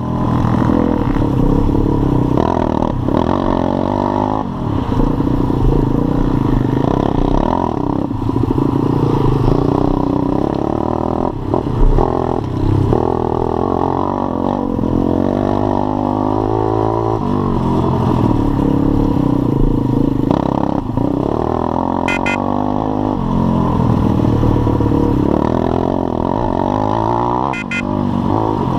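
Pit bike's single-cylinder engine being ridden hard along a dirt trail, its pitch rising and falling again and again with throttle and gear changes. A single loud knock about twelve seconds in.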